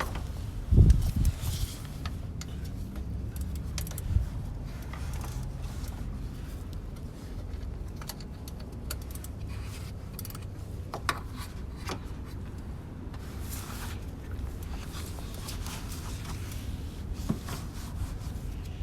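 Hand tools and metal parts being handled under a car's hood during an alternator removal: scattered clinks, scrapes and rubbing over a steady low rumble, with a heavy thump about a second in and a sharp knock about four seconds in.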